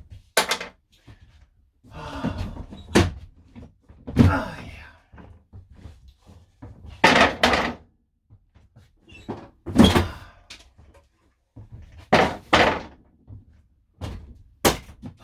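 Interior fittings of a camper van being smashed and ripped out by hand: a series of loud bangs, knocks and cracking crashes, about eight in all, spaced irregularly a second or two apart, in a small enclosed space.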